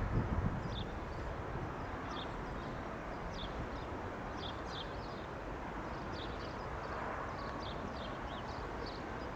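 Small birds chirping in short, quick repeated calls over a steady outdoor rumble, with wind buffeting the microphone right at the start.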